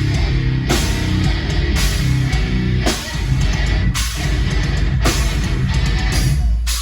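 Live heavy metal band playing: distorted guitars, bass and drum kit, loud, with heavy accents about once a second and a short break near the end.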